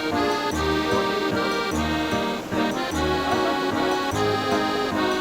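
Background music led by an accordion, chords changing in a steady rhythm over a bass note about once a second.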